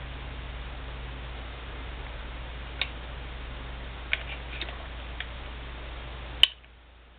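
Light metallic clicks from the parts of a High Standard Model HD Military .22 pistol being handled and fitted during reassembly: four small clicks spread over a few seconds, then one sharper, louder click near the end, at which a steady low hum stops.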